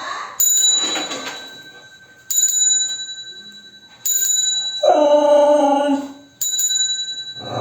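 Bicycle bell rung four times, about two seconds apart, each ring dying away slowly. Between the third and fourth rings the dog answers with one drawn-out, steady-pitched howl lasting about a second and a half.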